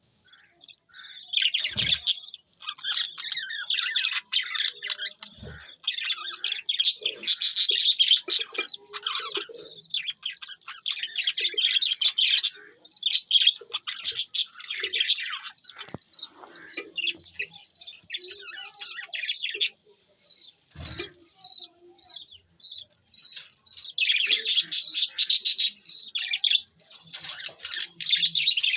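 A flock of budgerigars chattering, a dense run of chirps and warbles with short pauses, with a few soft knocks.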